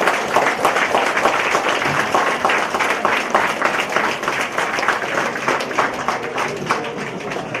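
Audience applauding, many people clapping at once, tapering slightly near the end.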